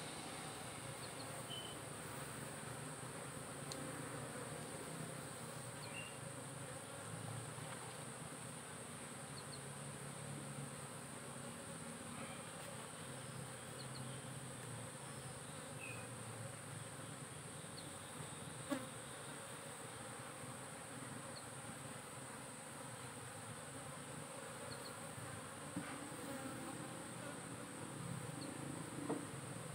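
Asian honey bees (Apis cerana) buzzing steadily over an open hive box. A few short sharp knocks come late on, about two-thirds of the way in and near the end.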